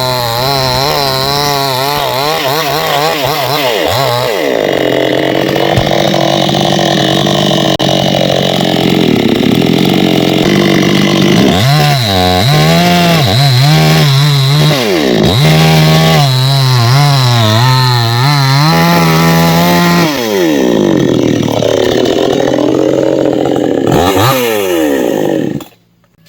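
Two-stroke chainsaw running loud and sawing through coconut palm wood, its engine pitch wavering and repeatedly rising and falling as it is revved and loaded. It cuts off abruptly near the end.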